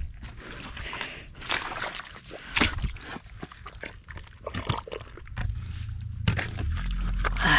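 Muddy water sloshing and squelching with scattered knocks as hands and tools work in a water-filled trench around a buried water line. A low steady hum comes in about two-thirds through.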